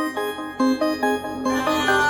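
Background music: a keyboard melody of short plucked notes, with a fuller electronic sound swelling in near the end.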